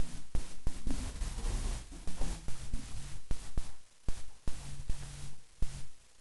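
Close rustling with many scattered sharp clicks and knocks, and now and then a faint low hum.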